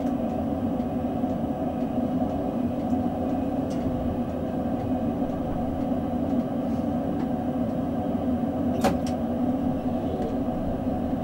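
Electric S-Bahn train standing at a platform, its onboard equipment giving a steady hum, heard from the driver's cab. A single sharp click sounds about nine seconds in.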